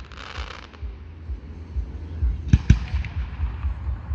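Aerial fireworks going off: a patch of crackling hiss in the first second, then two sharp bangs in quick succession about two and a half seconds in, over a steady low rumble.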